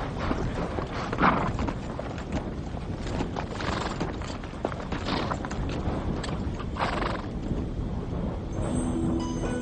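Horses whinnying several times over the clopping of hooves on hard dirt. Music comes in near the end.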